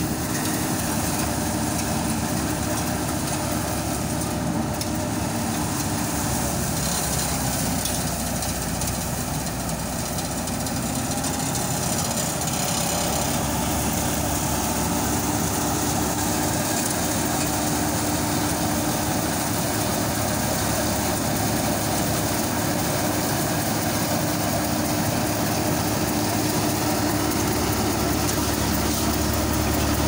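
Wheat thresher and the engine driving it running steadily while cut wheat is fed in, a constant, dense mechanical noise with a low engine hum underneath.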